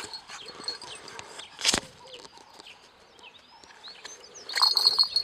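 Birds chirping in the background, with one short sharp sound about a second and a half in and a brief louder burst near the end.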